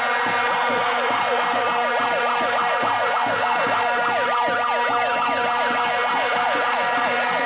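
Several megaphone sirens wailing at once, each rising and falling quickly and overlapping with the others, over a steady blare of plastic protest horns.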